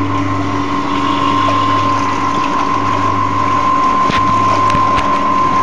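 Hydraulics bench pump running with a steady hum while water gushes into a clear cylinder, churning and splashing into froth as it fills.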